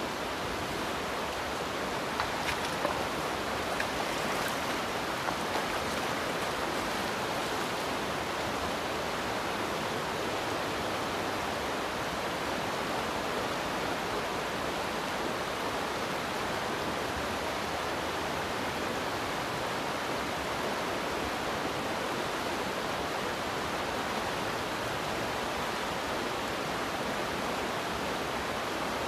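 Steady rush of a fast, shallow river running over rocks and riffles, with a few light clicks in the first several seconds.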